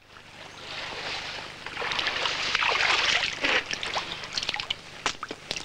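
Water splashing and sloshing, swelling in the middle and ending in several sharp separate splashes near the end.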